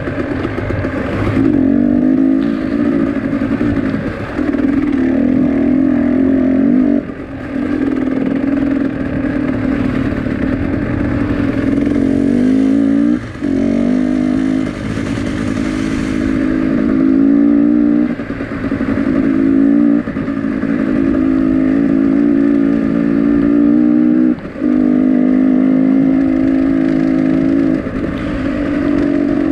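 A motor vehicle engine running hard at high revs, with several brief dips in pitch and loudness every few seconds.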